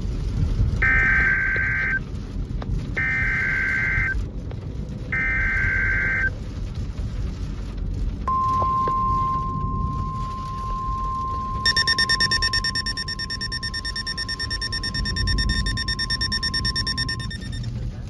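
Eton FRX-5 weather radio sounding a NOAA Weather Radio emergency alert: three short screeching bursts of SAME digital data, then the steady 1050 Hz warning alarm tone for about nine seconds, the signal that a warning or statement is about to be read. Partway through the tone a second, pulsing electronic alert sounds along with it.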